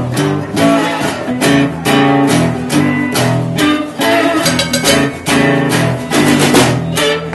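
Acoustic guitar strummed live, a steady run of chords struck about two to three times a second.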